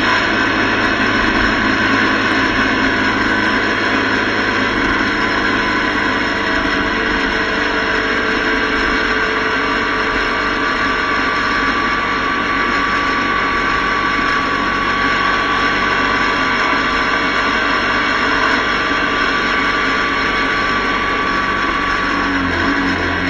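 Motorcycle riding at highway speed: steady wind rush over the action camera's microphone with road noise and the bike's engine running underneath.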